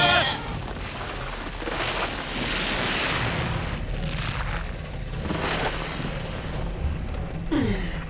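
Cartoon rumbling sound effect for a giant Sphinx rising and moving: a continuous deep rumble that swells several times. Near the end comes a short falling groan.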